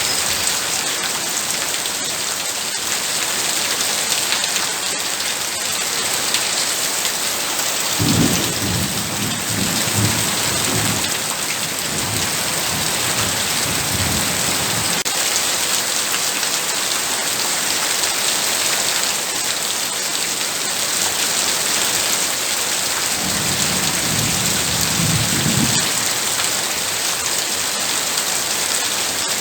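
Heavy rain falling in a steady hiss, with low thunder rumbling twice: a longer roll starting about a quarter of the way in and a shorter one near the end.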